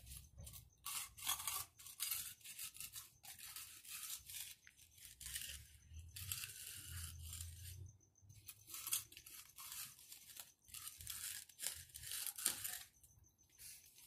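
Steel hand edger scraping back and forth along the edge of a wet concrete slab, rounding and smoothing the edge: a run of short rasping strokes, about one a second.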